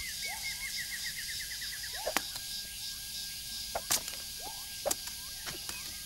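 Tropical forest ambience of calling birds and insects: a fast run of short high notes near the start, then scattered short chirps and a few sharp clicks over a steady high insect hiss.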